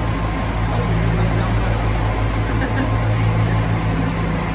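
Narrowboat engine running steadily at cruising speed, a constant low drone inside a brick canal tunnel.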